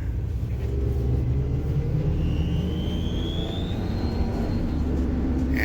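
Ford Transit's EcoBoost twin-turbo V6 running under acceleration, heard from inside the cab. About two seconds in, a faint high squeal rises in pitch for about two seconds: an exhaust leak at a broken exhaust manifold stud.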